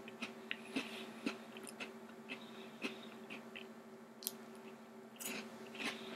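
Faint close-up chewing of a Tim Tam chocolate biscuit: soft, irregular mouth clicks.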